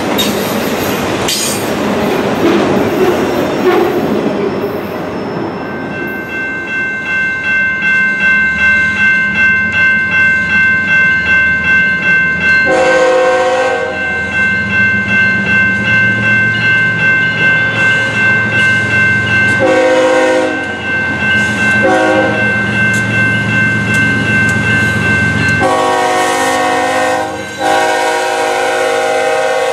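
Freight cars rolling past at first, wheels clacking over rail joints. Then a grade-crossing bell rings steadily about twice a second while a lashup of BNSF diesel locomotives rumbles closer. The lead locomotive's horn sounds the crossing signal, long, long, short, long, with the last blast held for several seconds near the end.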